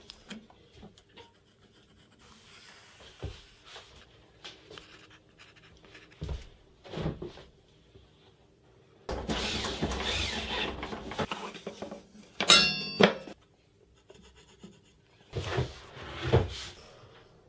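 Handling noises of a plywood zero-clearance insert blank on a cast-iron table saw top: scattered knocks and scrapes of wood on metal, a couple of seconds of steady rubbing, and one short, loud squeak with a clear pitch.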